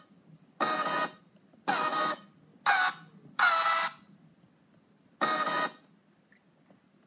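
Short electronic music samples triggered from a Novation Launchpad pad controller: five separate bursts, each under a second, some with sliding pitches, each cut off sharply with brief pauses between.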